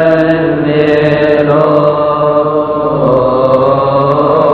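Coptic Orthodox Kiahk praise chant: male chanting sustained on a long melismatic held vowel, the closing 'Alleluia' of a psalm verse, with the pitch stepping up about one and a half seconds in.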